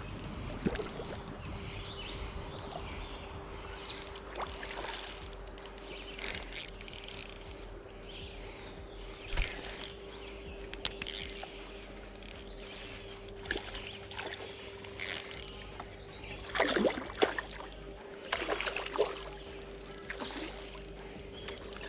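Irregular splashing of water from a hooked rainbow trout thrashing as it is fought, with a few louder splashes near the end, over a faint steady hum.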